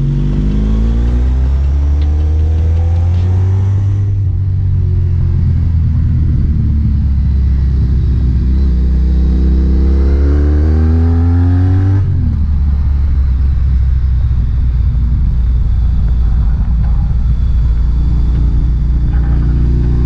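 Honda ST1300 Pan European's V4 engine running through a Delkevic aftermarket exhaust while being ridden, heard from on the bike. The engine note climbs under acceleration over the first few seconds, climbs again toward about twelve seconds in, then drops abruptly and holds steady.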